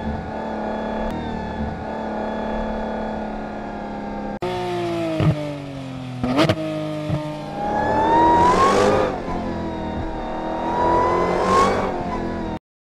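Sports-car engine sound effect. It runs at a steady note, then after a sudden cut the pitch falls with a few sharp cracks. It then revs up twice with a rushing hiss and cuts off abruptly near the end.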